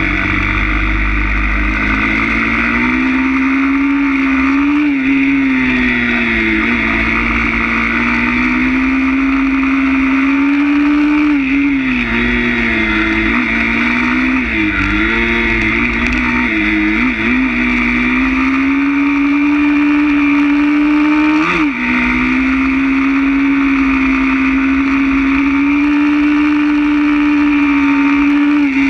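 160 cc pit bike's single-cylinder four-stroke engine running under load while ridden. The pitch mostly holds steady, with several brief dips and rises as the throttle is eased and reopened, and a short sharp blip a little past two-thirds in.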